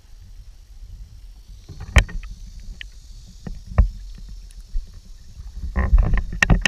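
Water slapping and sloshing against a low-mounted camera on the hull of a skin-on-frame canoe as it is paddled, a steady low wash. Sharp knocks and splashes from the paddling come about 2 s and 4 s in, and more thickly near the end.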